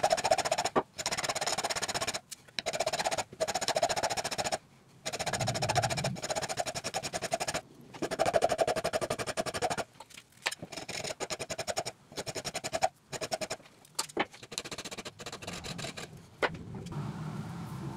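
Hand file rasping across a steel divider leg clamped in a vise, in repeated strokes about a second or two long with short pauses between them.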